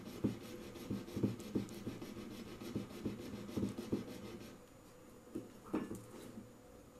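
Jeweler's saw cutting through a diecast metal toy car body, a rasping scrape with each stroke at about two strokes a second. The sawing stops about two-thirds of the way through, and a few light knocks follow.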